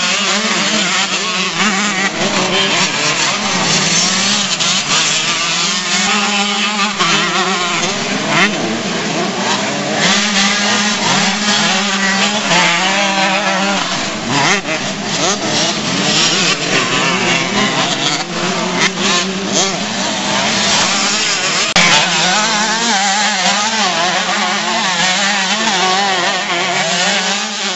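Several youth motocross dirt bikes racing on a dirt track, their engines revving up and down continuously as riders accelerate out of turns and back off over jumps.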